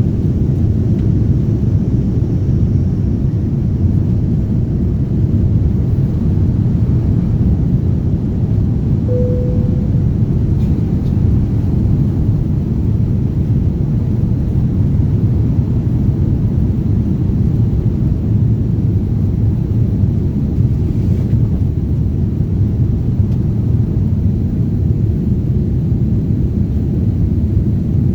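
Passenger jet airliner's steady low engine rumble, even in level throughout, with one short tone about nine seconds in.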